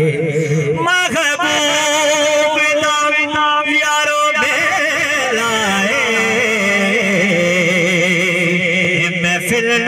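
A man singing a naat, drawing out long held notes with a wavering vibrato instead of words. The pitch glides up about a second in, and the line shifts to a new held phrase a little after four seconds.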